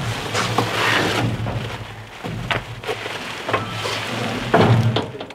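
Plastic wrap crinkling and rustling as a packaged window in its wooden shipping buck is handled, with several knocks of the wood frame, the loudest about four and a half seconds in. An engine idles underneath.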